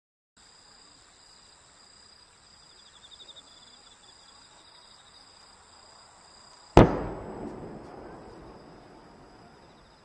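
A single loud firework bang about two-thirds of the way in, echoing away over a couple of seconds. Before it there is a steady, faint, high-pitched insect chirring.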